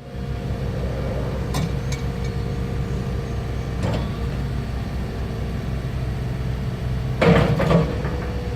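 Cat 289D skid steer's diesel engine running steadily with a faint steady whine above it, a few light knocks, and a louder clatter about seven seconds in.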